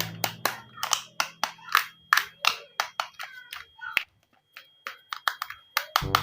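A quick, uneven series of sharp taps and clicks, over background music that fades out about halfway through.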